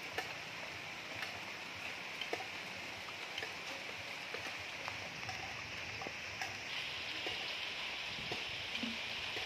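Light rain falling steadily, a soft even hiss with scattered faint drops ticking.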